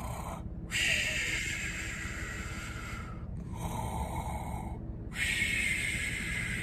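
A man fake-snoring: slow, drawn-out snoring breaths in and out, about two full cycles, each breath lasting a couple of seconds.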